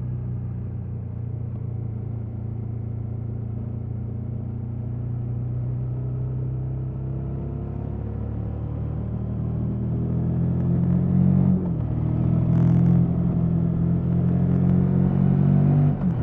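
KTM 1290 Super Adventure S's stock 1301 cc V-twin engine running on its standard exhaust. It holds a steady note, then rises slightly in revs and gets louder from about eight seconds in, with a brief break in the note about twelve seconds in and another near the end.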